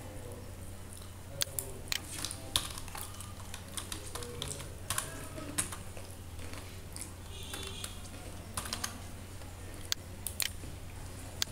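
Computer keyboard typing: irregular key clicks in short runs, over a steady low hum.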